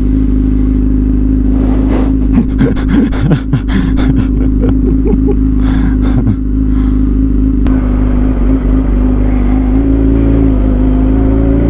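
A Yamaha R6's 600cc inline-four motorcycle engine running at a steady speed, with a stretch of clattering and brief wavering tones in the middle.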